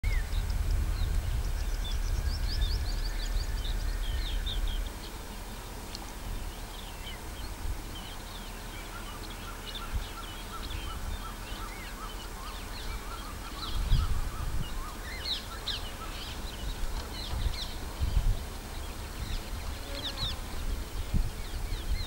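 Natural outdoor ambience of many small birds chirping and calling in quick high notes. A low rumble sits under the first five seconds and stops abruptly, and a few soft low thuds come later on.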